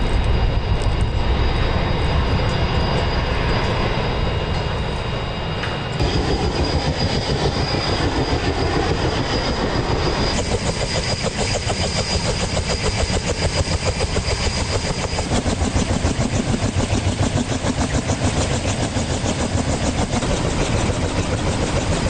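Sea Hawk helicopter running on a ship's flight deck: a steady high turbine whine, then a rapid, even blade chop from the spinning rotor that gets stronger about ten seconds in.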